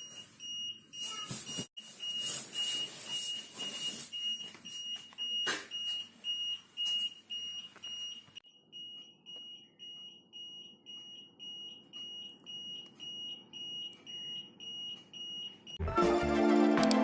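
Buzzer of a homemade rain-detector alarm beeping about twice a second in a high tone, set off by water wetting the sensor. A hissing noise runs under the beeps over the first half.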